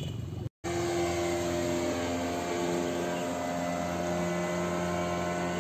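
A motor engine running steadily, its droning pitch drifting slightly, following a short cut-out of the sound about half a second in.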